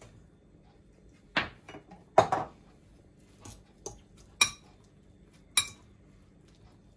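Stainless steel fork stirring instant noodles and raw egg in a bowl, clinking sharply against the bowl several times at irregular intervals. A couple of the clinks ring briefly.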